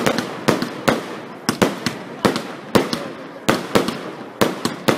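Fireworks display: a rapid series of sharp bangs, about two to three a second, each fading off quickly as the aerial effects burst overhead.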